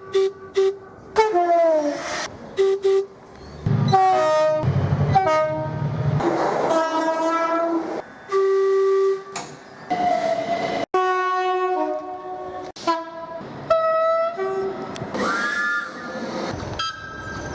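British train horns sounding in quick succession: two-tone horns alternating between a low and a high note in short blasts, one clip cut straight into the next. A few notes bend in pitch as a train passes, and there is a low rumble of a passing train around the middle.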